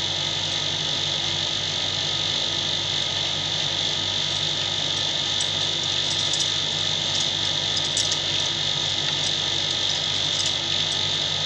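Steady background drone of an insect chorus, an even high-pitched band that never lets up, over a low steady electrical hum. A few faint clicks of the knitting needles come through near the middle and near the end.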